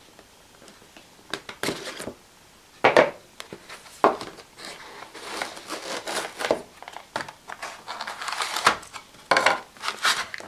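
Cardboard model-train box being opened by hand, with a couple of sharp knocks against a wooden tabletop about three and four seconds in. After that comes a run of crinkling from a small clear plastic bag being handled.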